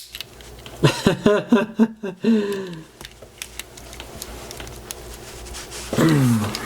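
Wordless vocal sounds from a man early on and a falling hum near the end, with faint light clicks and scraping between from a tool prying at the sealed plastic case of a Digipass authenticator.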